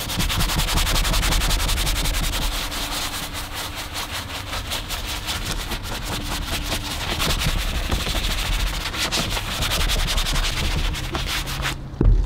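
Soft-bristle detailing brush scrubbing cleaner into a textured vinyl console armrest: rapid, scratchy back-and-forth bristle strokes that work the cleaner into a lather. A short knock sounds near the end.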